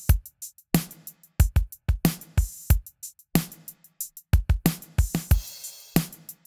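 A drum-kit loop, kick and snare hits with cymbals in a steady rhythm, playing through the Acustica Audio Coffee vari-mu compressor emulation, blended in parallel with the dry drums via the plugin's mix control.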